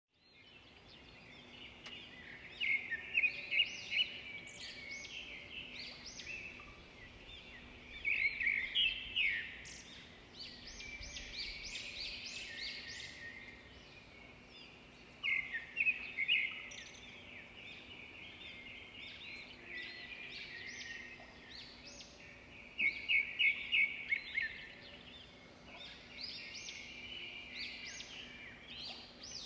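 Birds singing together in a busy chorus of chirps and trills. Four times, a louder burst of quick repeated notes stands out, about every seven seconds.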